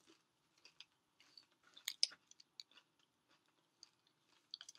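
A person chewing food close to the microphone: faint wet smacks and small crunches, a little louder about two seconds in.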